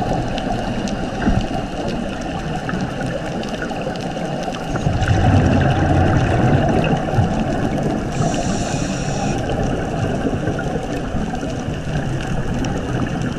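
Water gurgling and bubbling around a GoPro on a scuba dive, as a steady noise that grows louder and lower about five seconds in. A brief high whine sounds about eight seconds in.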